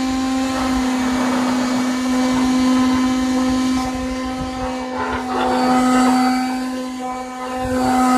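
Electric power sander running at a steady speed and sanding along a rough-split wooden trim piece: one steady motor hum with a scratchy rasp over it, growing louder and softer as it works the wood. This is the first sanding, to take the saw-split faces smooth.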